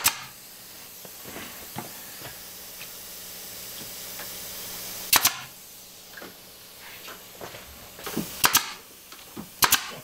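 Brad nailer firing nails into wooden trim: a sharp shot right at the start, another about five seconds in, and a few more in quick pairs near the end.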